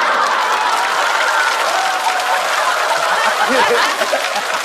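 Studio audience laughing and applauding.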